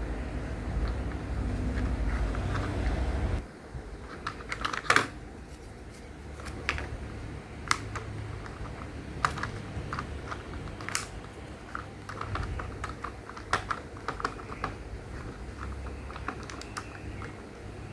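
Small hard plastic building pieces being handled and snapped together: scattered light clicks and taps, irregular like typing. A low hum runs underneath at first and cuts off suddenly about three seconds in.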